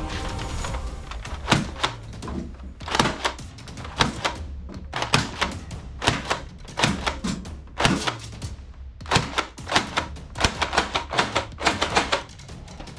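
Irregular sharp plastic clicks and clacks from a toy foam-dart sniper blaster with a revolving cylinder being handled and its cylinder worked.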